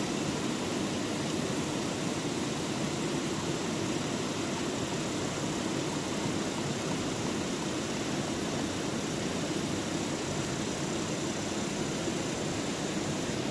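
Steady, even rushing of a stream, its water noise constant with no rises or breaks.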